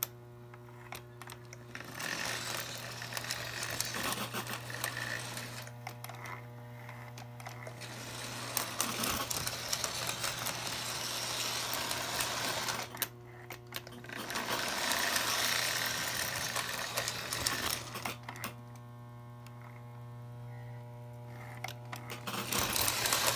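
Lionel O-gauge toy steam locomotive running on three-rail track, its electric motor whirring and wheels clattering over the rails, with a steady low hum underneath. It gets quieter several times, leaving the hum and a faint steady tone. Its E-unit reverse unit has had the pawl arm bent to cut the usual E-unit buzz, so little buzzing is heard.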